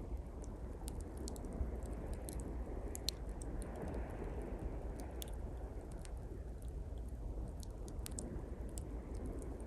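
Small campfire of pine twigs crackling, with irregular sharp pops and snaps, over a steady low wash of sea waves that swells briefly about four seconds in.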